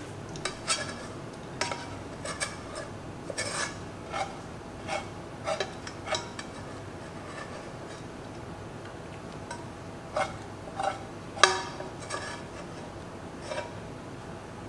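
A metal spoon scraping and knocking against a saucepan and ceramic plates while rice is served out: a string of irregular clinks and scrapes, a pause of a few seconds midway, then more, with the loudest knock about eleven seconds in.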